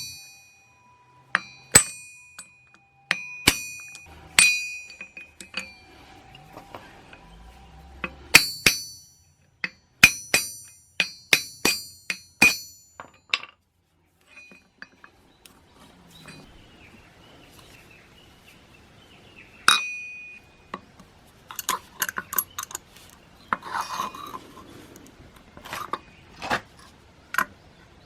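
Metal parts clinking and tapping against each other, in irregular clusters of sharp strikes. Many strikes leave a short, high metallic ring.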